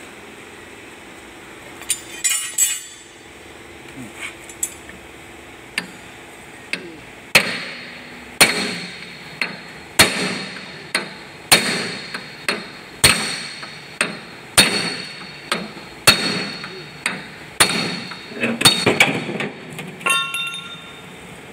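Hammer striking metal: a few scattered knocks, then steady blows about two a second, each with a short metallic ring after it.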